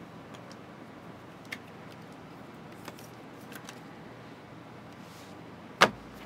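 Trading cards and clear plastic card sleeves being handled by hand: faint scattered clicks and rustles, with one sharper tap near the end.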